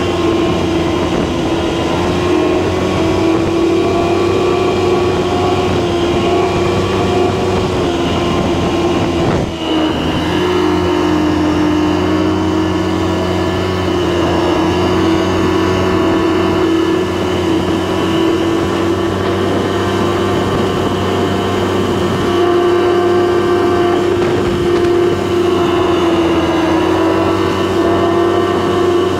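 Snowmobile engine running steadily under way, its pitch holding with slight wavers and a short dip about nine and a half seconds in.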